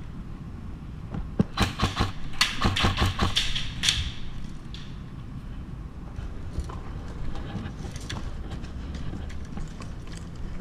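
Footsteps and gear movement of airsoft players creeping over a concrete floor. A quick flurry of sharp knocks and clicks comes about one and a half to four seconds in, then fainter scattered clicks.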